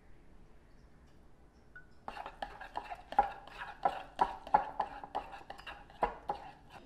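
Metal spoon stirring thick gochujang sauce in a ceramic bowl, clinking against the bowl's side about three times a second with a short ring each time. The clinking starts about two seconds in and stops shortly before the end.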